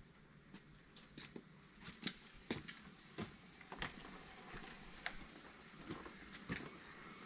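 Faint, irregular clicks and knocks, about two a second, as a motorcycle is wheeled out of a garage by hand with its engine off.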